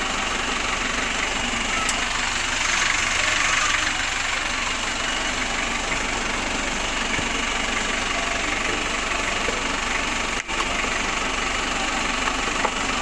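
A van engine idling steadily and evenly.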